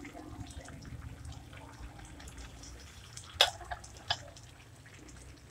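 Soupy chicken and bamboo-shoot stew simmering in a wok with faint bubbling and popping. A metal ladle clinks sharply against the wok twice, a little past halfway.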